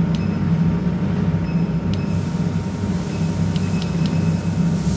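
Steady low hum of a jewelry laser welding machine running idle, with a few short electronic beeps and clicks from its control panel as its settings are keyed in.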